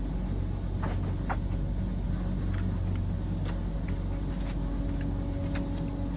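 Steady low rumble and hum of security-camera audio, with a few faint ticks scattered through it.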